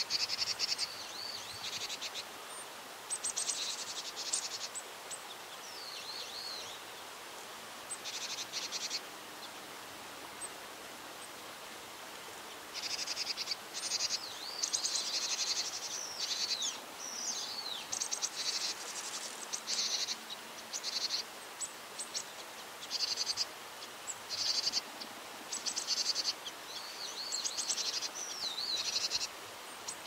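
Japanese tit calling in repeated short bursts of rapid, rattling high notes lasting about a second each, mixed with a few thin, sliding chirps. The bursts come more often in the second half.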